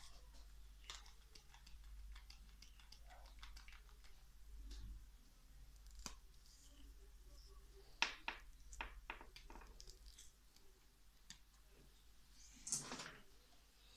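Faint handling noise: scattered clicks and taps as a gloved hand takes a smartphone out of a holder made of bicycle inner tube and zip ties on the handlebar, with a quick run of clicks about eight seconds in and a short rustle near the end.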